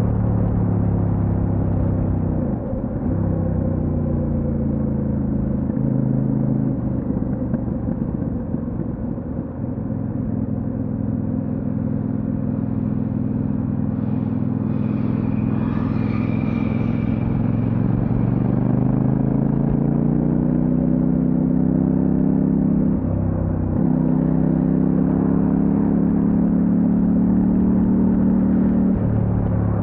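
Kove 800X Pro motorcycle's parallel-twin engine running under way. Its note climbs as it accelerates, then drops back briefly several times at gear changes. A short higher-pitched sound rises above it about halfway through.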